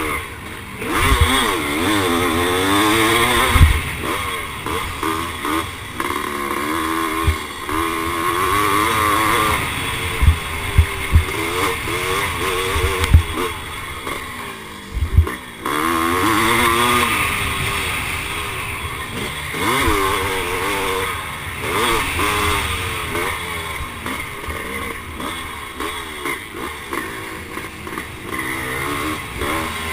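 1978 Husqvarna CR390's single-cylinder two-stroke engine ridden hard, revving up and falling back again and again through the gears. Low thumps come now and then.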